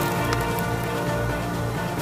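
Background music, with a short click a little after the start as a kitchen knife cuts through the head of a cutlassfish.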